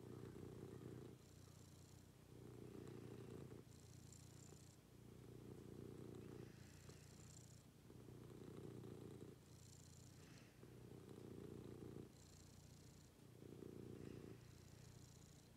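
Domestic cat purring close up, the purr rising and falling with each breath about once every two seconds.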